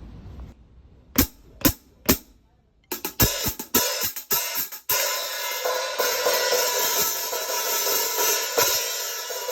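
Zildjian 14.25-inch K Custom Hybrid hi-hat cymbals: three sharp clicks about a second in, then the hats struck in a quick run of strokes from about three seconds, opening into a continuous bright wash from about five seconds in.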